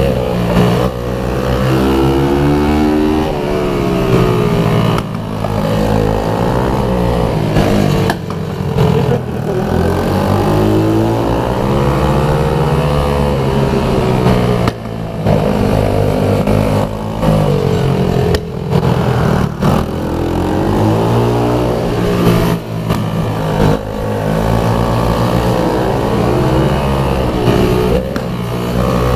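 Pit bike engine at racing revs, its pitch climbing and falling again and again, with short breaks where the throttle is shut off.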